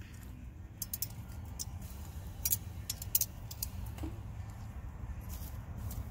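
Metal grilling tongs clicking against a steel grill grate and a metal pan while roasted tomatoes and garlic are lifted off: a scattered series of short sharp clicks over a low steady background rumble.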